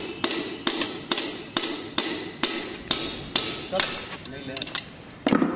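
A hammer strikes metal repeatedly, about two blows a second, each with a short ringing tone, with a louder clatter near the end. It is driving the number-four piston and connecting rod out of the bore of a Hyundai i20 engine, whose rod bearing seized for lack of oil.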